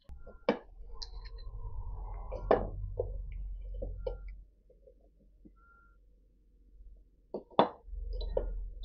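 Handling sounds of firebricks and small steel parts being set into a makeshift hearth: a few sharp knocks and light clicks, the loudest about half a second, two and a half and seven and a half seconds in, with a near-silent pause in the middle.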